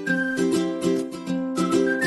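Background music: a whistled melody over a steady, rhythmic plucked-string accompaniment.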